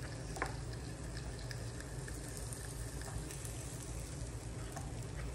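Meat sizzling on a grill at home yakiniku, a steady sizzle with many small pops and crackles and one sharper click about half a second in.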